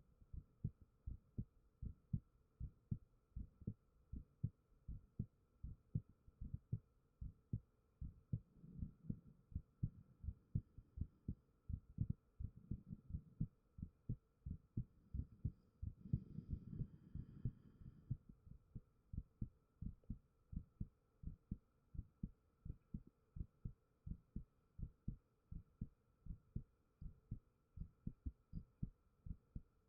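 A human heartbeat recorded close up: a steady, regular run of soft, low thumps in lub-dub pairs, over a faint steady hum.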